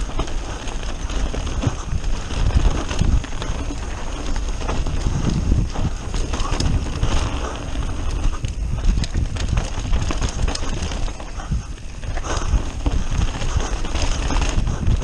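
Mountain bike riding fast down a rough dirt forest trail: a continuous clatter and rattle of the tyres, frame and drivetrain over roots and stones, over a heavy low rumble, picked up by a camera riding on the bike or rider.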